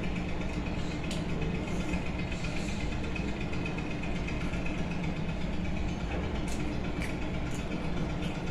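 A steady mechanical hum with a hiss, and a few faint soft ticks of fingers mixing rice in a plate.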